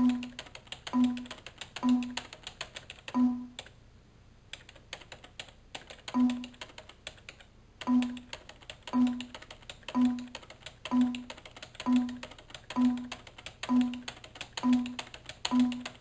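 Computer keyboard keys pressed in quick, regular succession: a heavier low thunk about once a second with lighter key clicks between, pausing for a couple of seconds early on before picking up again.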